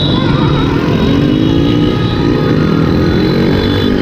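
Several motorcycle engines running together in a pack of moving motorbikes, their pitch rising and falling as they speed up and ease off, over a heavy low rumble of wind and road noise on a moving bike.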